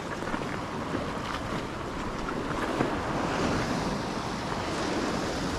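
Sea waves washing on a rocky shore under steady wind, with wind buffeting the microphone and a few faint ticks.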